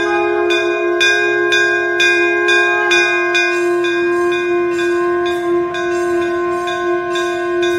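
Temple bells struck about twice a second, each stroke ringing on over a steady, sustained tone.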